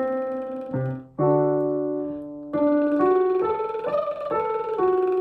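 Piano playing a vocal warm-up arpeggio pattern, single notes stepping up and down over sustained chords. About a second in, the sound briefly dips, then a new chord with a low bass note starts the pattern again in the next key.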